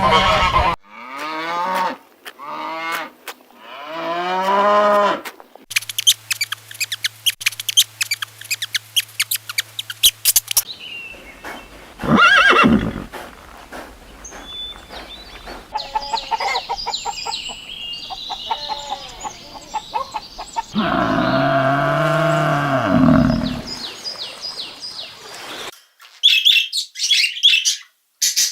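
A run of different animal calls cut one after another: several short rising-and-falling calls, a stretch of dense rapid chirping, one loud call, birdsong, then a long low call in the manner of farm livestock.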